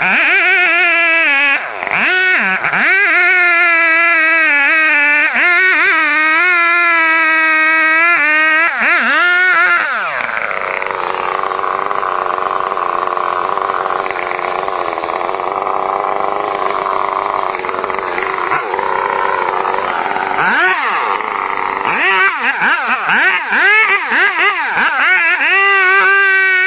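Chainsaw engine running hard under load, its pitch wavering up and down as it cuts. About ten seconds in it turns rougher and noisier, and near the end the wavering pitch returns.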